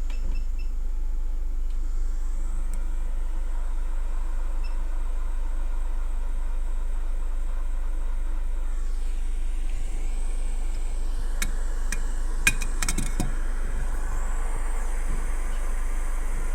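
Steady low electrical hum from bench equipment, with a short cluster of small clicks and taps about twelve seconds in.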